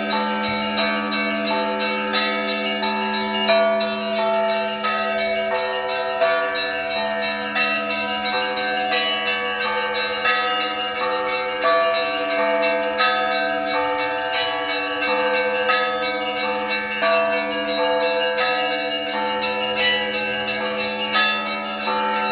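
Russian Orthodox church bells rung together to call to a service: several bells of different pitches struck in a quick, repeating rhythm over the steady low hum of a larger bell.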